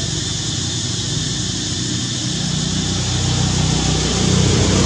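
A motor vehicle's engine running steadily, getting louder near the end, under a steady high hiss.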